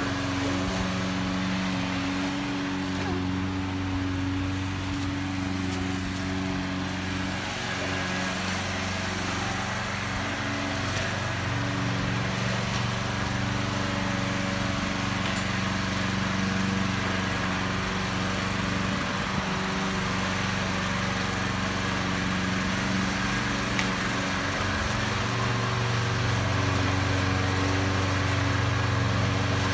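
Walk-behind gas lawn mower engine running steadily as the mower is pushed across grass.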